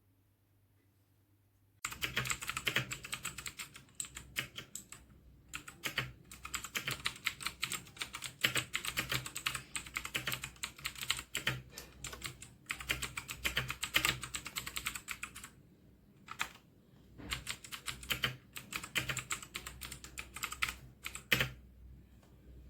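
Typing on the Dierya DK61se 60% mechanical keyboard with red linear switches: a fast, continuous run of key clicks with a few short pauses, starting about two seconds in and stopping shortly before the end.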